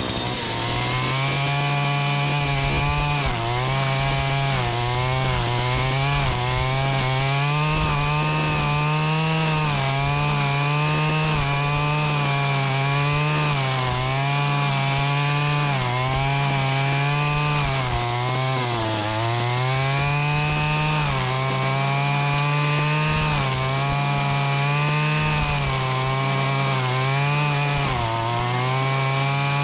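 Rebuilt Stihl FS80/FS85 string trimmer's small two-stroke engine running at high revs while cutting, its pitch dipping and picking back up every second or two.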